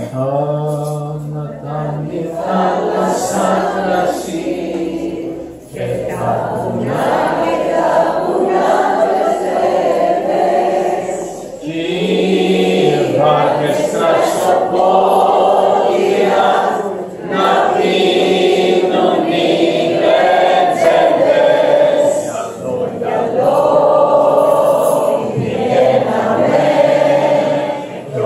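A roomful of people singing a Greek song together, led by a man singing into a microphone, in long held phrases with brief pauses between them.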